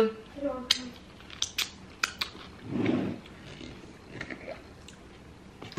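Wet lip smacks and mouth clicks from licking wing sauce off the fingers: a few sharp clicks in the first two seconds, then a brief low muffled sound about three seconds in.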